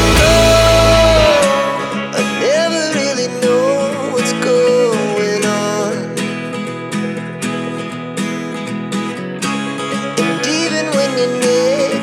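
Background music with plucked guitar under a gliding melody line; the deep bass drops out about a second in.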